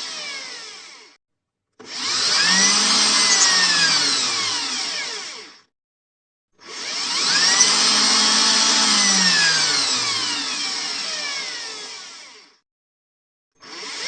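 Electric drill run in repeated bursts: each time the motor whines up to speed, runs for several seconds, then winds down to a stop, with about a second of silence between runs. A run winds down at the start, two full runs follow, and another starts near the end.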